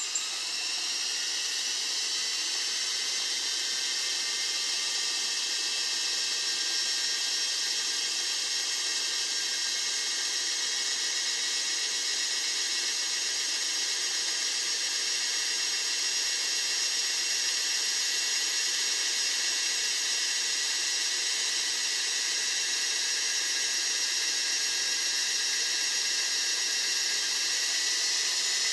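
Lego Technic variable-pitch propeller spinning at speed under electric power: a steady high-pitched motor and gear whine over a steady rush of air from the blades.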